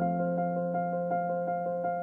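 Background piano music: evenly repeated notes, about five a second, over a held chord.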